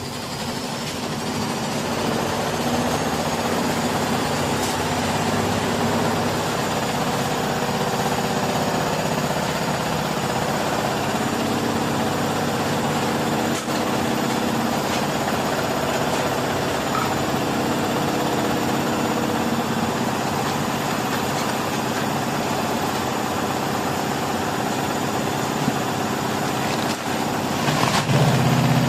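LG washing machine on a spin cycle: the drum spins up and a thin motor whine climbs in pitch over the first few seconds, then the drum runs steadily. A louder low hum sets in near the end.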